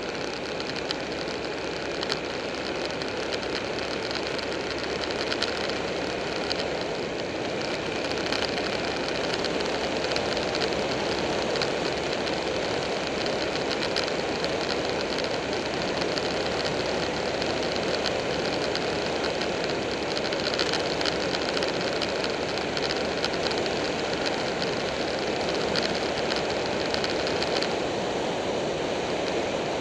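Heavy wind rush on a motorcycle-mounted camera's microphone, with a Buell 1125R's V-twin engine running steadily underneath at cruising speed.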